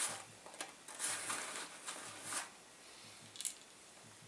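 Handling noises: a few short rustles and scrapes as a small metal tin is handled over a nylon backpack, with quieter stretches between.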